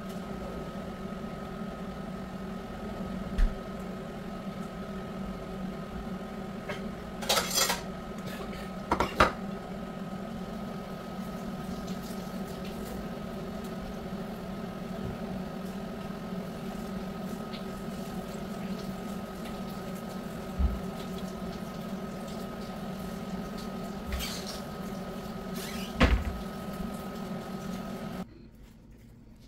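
A steady machine hum with a few short clinks and taps of hands and garnish against a steel serving platter, the loudest about a quarter of the way in and near the end. The hum cuts off suddenly just before the end.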